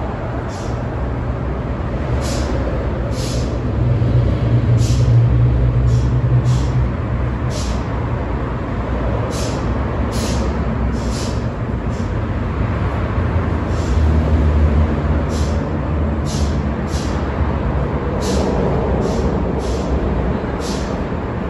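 Santiago Metro NS-04 train standing at the platform: a steady low hum from its onboard equipment, swelling twice, with short high hisses of air recurring every second or so.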